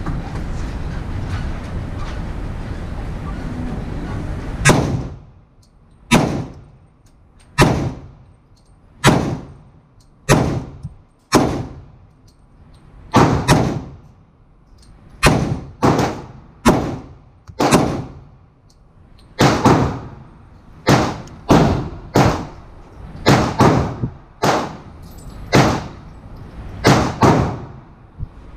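A string of more than twenty pistol shots from a Glock 31 in .357 SIG mounted in a CAA Micro Conversion Kit chassis, fired at roughly one a second with some shots closer together, each with a short echo off the walls of an indoor range bay. A steady rushing noise fills the first few seconds before the first shot.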